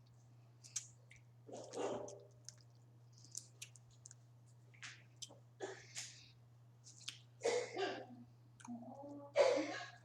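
Close-up eating of boiled crawfish: shells cracking and clicking, with chewing and sucking. The loudest mouth noises come about two seconds in and twice near the end.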